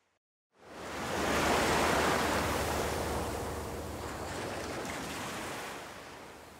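Wave-like rush of noise, a logo sound effect: after a brief silence it swells up about half a second in, then slowly fades away.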